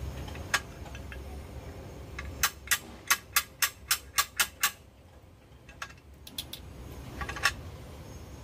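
Homemade steel lever tool for cracking and scooping out kepayang (pangi) seeds being worked by hand, making sharp clicks: one, then a quick even run of about nine, about four a second, then a few scattered clicks and a final loud one near the end.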